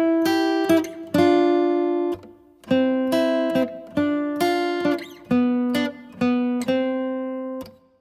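Background music: guitar chords strummed one after another, each ringing and dying away, stopping shortly before the end.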